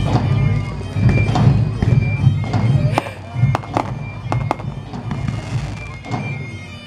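Music with a steady drone, over which fireworks go off: a run of sharp bangs about three to four and a half seconds in, then a crackling hiss.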